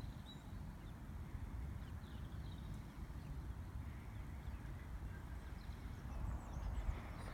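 Outdoor ambience: an irregular low rumble of wind buffeting the microphone, with a few faint, short, high bird chirps.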